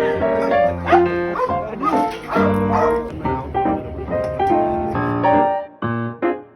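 Background music with a dog whining and yipping over it in the first few seconds.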